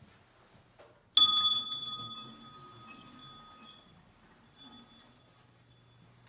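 Small wall-mounted bell rung by its pull chain: a sharp ring about a second in that fades over several seconds, with a few lighter strokes of the clapper as it dies away.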